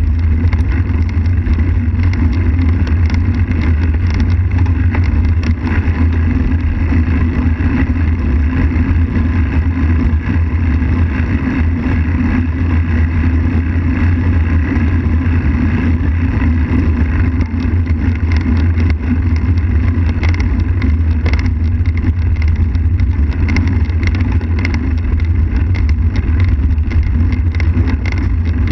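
Wind buffeting the microphone of a bike-mounted camera on a moving road bike, a steady low rumble, over the hiss of tyres rolling on asphalt with small clicks from bumps in the road.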